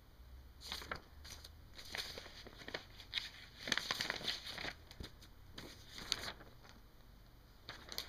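Sheets of lined binder paper being handled and turned, rustling and crinkling in several short bursts, the longest just under four seconds in.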